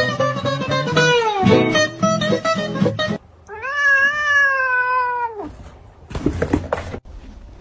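Music for the first three seconds, then a cat gives one long meow that rises a little and drops away at the end, followed by a short noisy scuffle as one cat swats the other.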